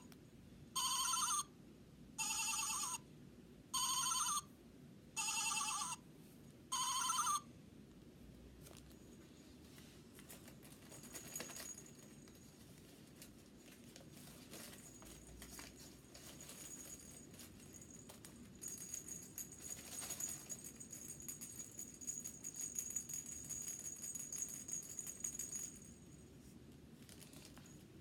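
Six short, evenly spaced high-pitched squeaks from a handheld baby toy, each rising a little at its end, then soft rustling and crinkling as the toy is handled.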